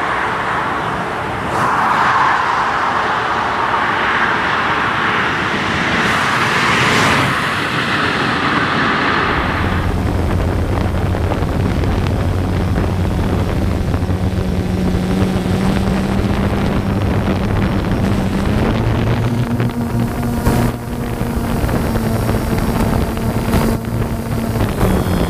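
Wind and road noise inside a Tesla Model S P85D's cabin at high speed for about the first ten seconds. It then gives way to the steady hum of a drone's propellers, whose pitch steps up a little about three-quarters of the way through.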